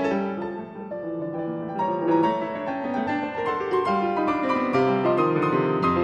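Classical piano music playing a continuous run of notes.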